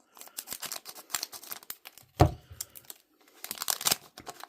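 Crinkling and tearing of a trading card pack's wrapper being handled and opened, in short sharp rustles with a dense cluster near the end. One dull knock about two seconds in.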